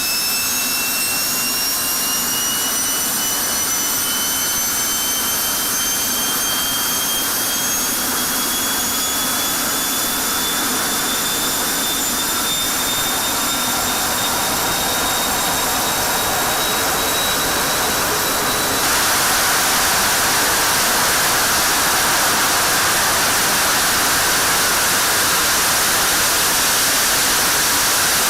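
F-16 jet engine spooling up in a hush house, a high turbine whine climbing steadily in pitch. About two-thirds of the way in, the sound jumps suddenly louder into an even rush that drowns the whine as the engine goes to full afterburner.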